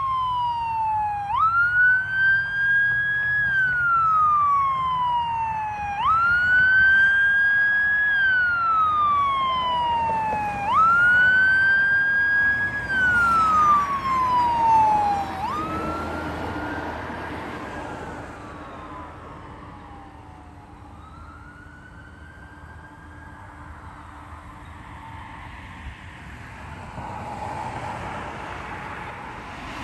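Fire engine siren wailing in repeated cycles, each a quick rise followed by a slow falling glide, about one every five seconds. It is loud as the truck goes by, then fades over the second half as it moves away, with engine and road noise underneath.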